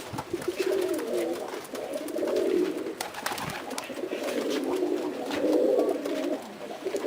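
Domestic pigeons cooing together, many coos overlapping with no pause.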